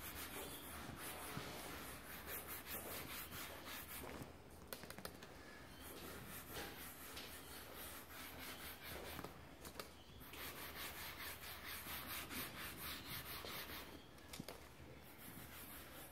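Faint swishing of a cloth rubbed in repeated strokes over leather couch upholstery, working in leather conditioner.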